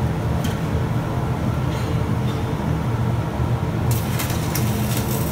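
Stick (shielded metal arc) welding: a steady low shop rumble, then from about four seconds in the sharp, irregular crackle of the arc as the electrode burns.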